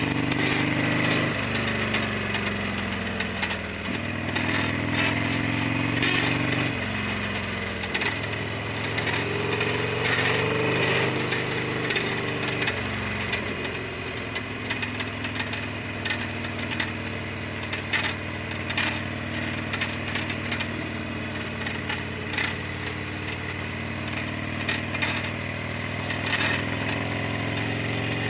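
Harley-Davidson Sportster XL1200R's air-cooled V-twin engine heard while riding, its pitch climbing and then dropping back several times as the gears change, with scattered sharp clicks over the engine note.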